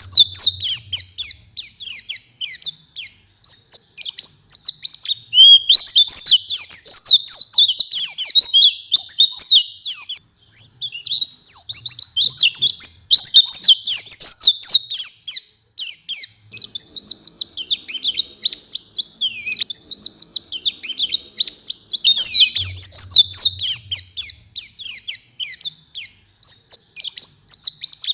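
White-eye (pleci) singing in full song: a long, rapid twittering of high chirps and trills, broken by a few short pauses.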